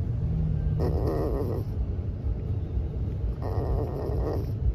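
A young puppy whimpering in drawn-out, wavering cries, three times about two and a half seconds apart, over a steady low rumble.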